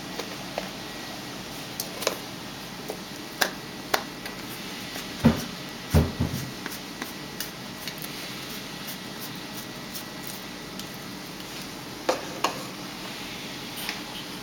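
Steady hum and hiss of a home aquarium's filter and air bubbler, with scattered sharp clicks and a few low knocks, the loudest about five to six seconds in.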